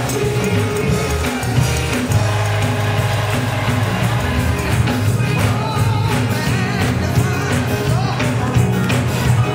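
Large gospel choir singing live over a band accompaniment, with rhythmic clapping.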